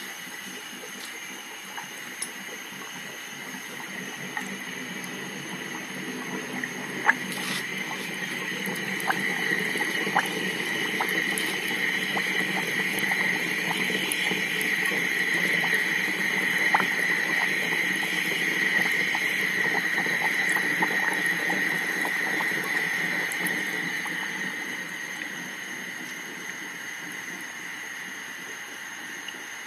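Tuttnauer 2340E tabletop autoclave venting steam after a manual stop: a hiss that builds over several seconds, holds, then dies away near the end, with a few sharp clicks.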